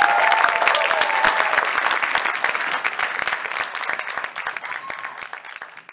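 Audience applauding, with a few high calls of cheering over the clapping in the first second or so; the clapping thins out toward the end.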